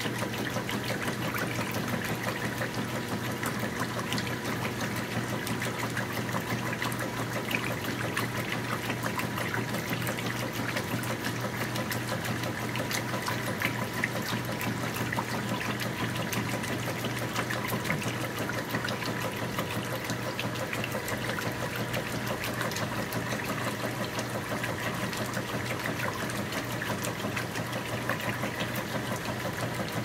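KitchenAid top-loading washing machine in its agitate cycle, the agitator churning clothes through the water with steady sloshing. Under it runs a steady hum from the frequency converter that powers the machine.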